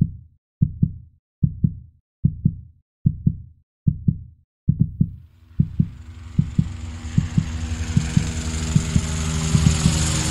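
Heartbeat sound effect: low double thumps at a steady pace, about one beat every 0.8 seconds. About halfway through, a steady noise with a low hum rises in underneath and keeps growing louder while the thumps continue.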